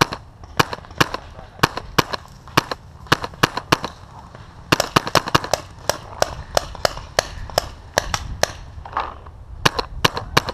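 Paintball markers firing: sharp pops, some single and some in quick irregular strings of several shots.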